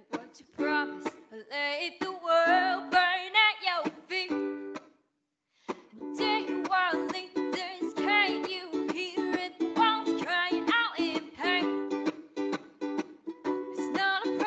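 Song music: a strummed plucked-string accompaniment with a wavering melody line over it. It drops out for about half a second roughly a third of the way through, then carries on.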